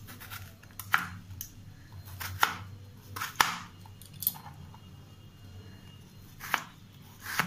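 Chef's knife cutting through peeled raw potato and knocking on a plastic cutting board: about seven irregular strokes, with a pause of about two seconds past the middle.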